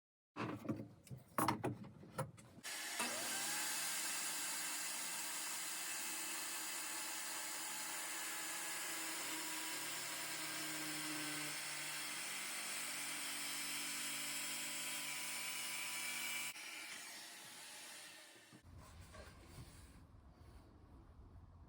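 HiKOKI circular saw cutting through wood: a few knocks of handling, then the saw starts and runs steadily through the cut for about fourteen seconds, and is released and spins down.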